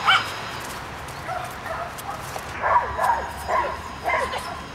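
A small dog yapping in short, high yips: one at the start, then a quick run of about four near the end.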